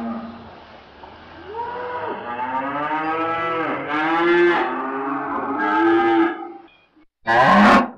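Dutch Belted dairy cows mooing: several long, drawn-out moos, one after another and overlapping, then a short, louder call near the end.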